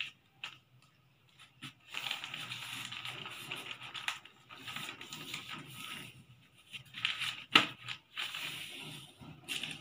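A large folded sheet of paper rustling and scraping against a stone floor as hands press and run along the crease, with one sharp tap about three-quarters of the way through.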